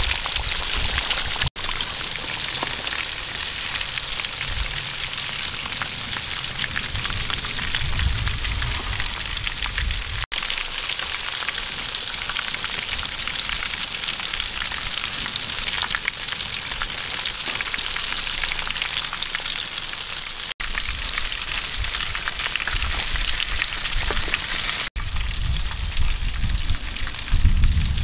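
Battered fish deep-frying in a pan of hot oil: a steady sizzle that drops out for an instant four times. Some low bumps come in near the end.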